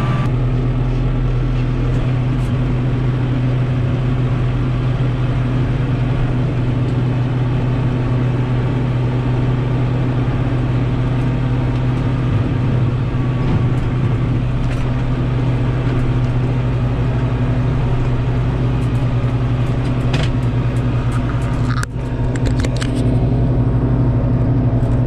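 Kubota M6040 tractor's diesel engine running steadily at a constant speed, a deep even drone, with a few clicks and knocks near the end.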